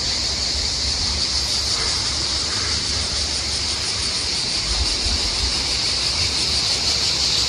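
Dense chorus of cicadas: a loud, steady, shrill hiss, over a low rumble.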